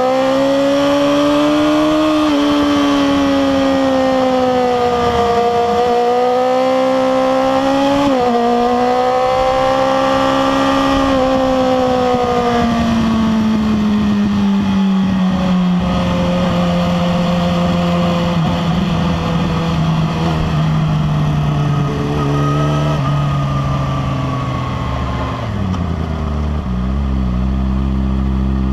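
Inline-four sportbike engine heard from onboard, with wind rushing across the microphone. The revs rise and fall with the throttle at first, then wind down steadily over several seconds and settle to a low, steady run near the end.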